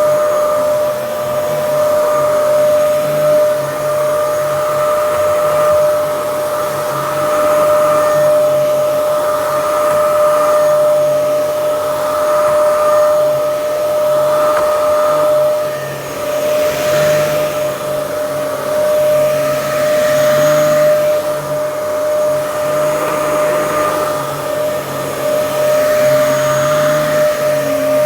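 Dyson DC07 upright vacuum cleaner running continuously, with a steady high motor whine over a rushing airflow hiss that swells and fades every few seconds.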